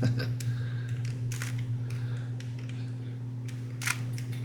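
Irregular clicks and clacks of a stiff, stickered Rubik's-brand cube as its layers are turned, with the sharpest click near the end. A steady low hum runs underneath.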